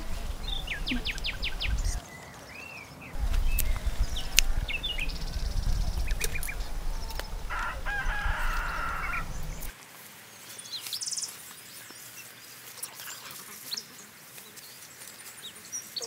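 Small birds chirping and trilling, with a rooster crowing once about eight seconds in. A low rumble runs under the first ten seconds and cuts off suddenly, leaving only faint bird calls.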